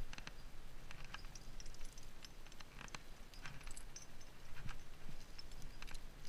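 A climber's irregular light clicks and scrapes as he moves up the rock: hands and feet shifting on the stone and climbing gear on the harness clinking.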